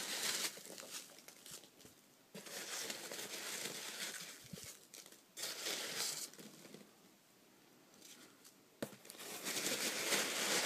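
A hand rummaging through foam packing peanuts in a cardboard box: rustling and crinkling in bursts of a second or two, with short pauses between.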